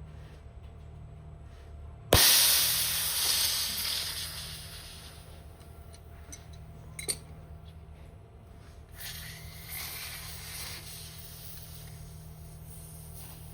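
High-pressure air hissing out of a PCP airgun regulator setup: a sudden loud release that fades over about three seconds, a single click a few seconds later, then a second, softer hiss.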